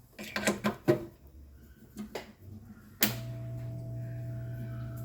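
A few clicks and knocks of handling tools on the bench, then about three seconds in a rework station's blower switches on and runs with a steady hum.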